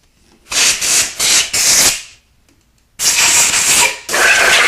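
Compressed-air blow gun hissing in three long blasts with short pauses between, the first broken into quick pulses, blowing out the engine block's bolt holes and then the cylinder head to clear debris loosened by the thread chaser.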